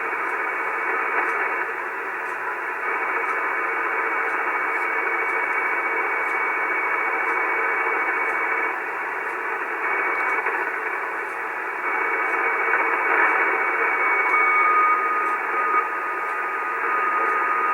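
Icom 730 HF transceiver's audio on the 75-metre band: dense static and hiss filling the voice passband, the interfering noise heard at 3800 kHz. About fourteen seconds in, a steady whistle tone joins the static.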